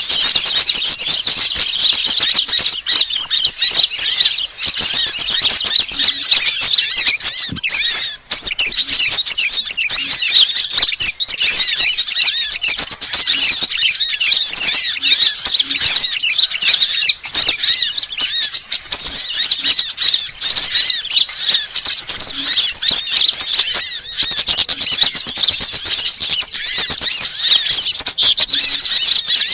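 Dense, unbroken twittering of many rapid high-pitched chirps from small songbirds: a bird-lure recording that mixes the calls of several species, such as sunbirds and bulbuls.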